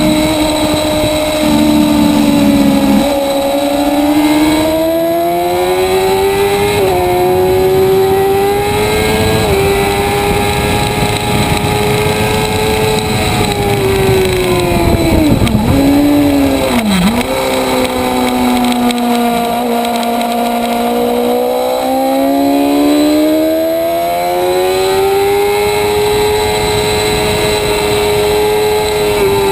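Motorcycle engine on track at high revs, its pitch climbing in small steps as it goes up through the gears. About halfway through the pitch drops sharply twice as it brakes and downshifts, then it rises again under throttle.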